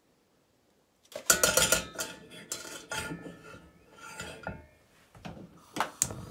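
Metal saucepan clattering, knocking and clinking as it is handled and moved on the hob, starting about a second in, with a few sharp clinks near the end.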